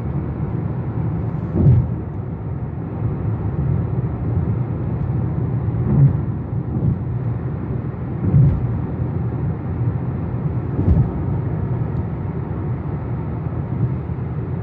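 Car cabin noise while driving: a steady low rumble of road and engine, with four short low thumps spread through it.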